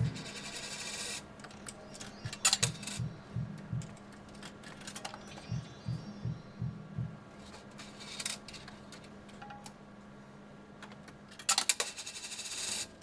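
Casino floor ambience without voices: coins clinking and jangling in several short flurries, the longest near the end, over a steady electrical hum of machines, with a run of soft low thuds in the first half.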